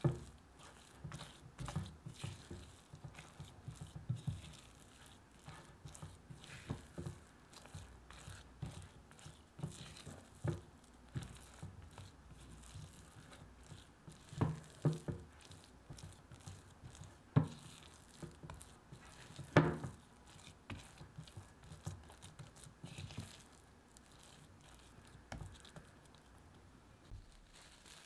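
Thick chocolate cookie dough with chopped pecans being folded and pressed with a spatula in a glass bowl: irregular sticky scraping and squishing, with occasional sharper knocks of the spatula against the glass, the loudest about two-thirds of the way through. The strokes thin out near the end as the dough comes together.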